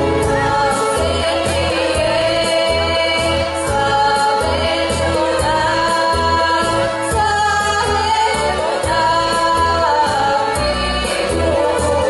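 Bulgarian folk song sung as a duet over instrumental accompaniment with a steady, driving beat and long, wavering sung notes.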